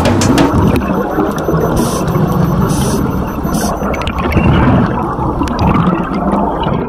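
Underwater rushing and gurgling of scuba divers' exhaled bubbles streaming up past the camera, a dense low noise. It cuts off suddenly at the end.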